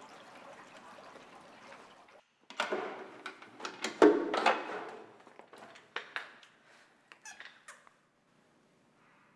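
Dusting a wooden side table with a cloth: rustling and scraping with clicks and light knocks as things on it are shifted, loudest about four seconds in and dying away by about eight seconds. Before that there is a faint steady hiss.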